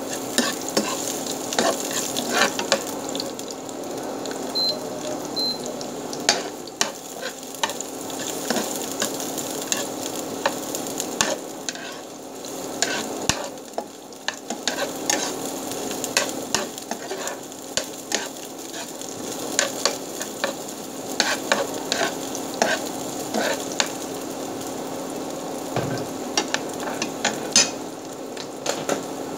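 Garlic and onion sizzling in hot oil in a large pan, sautéed with a metal spatula that scrapes and clinks against the pan in irregular sharp knocks.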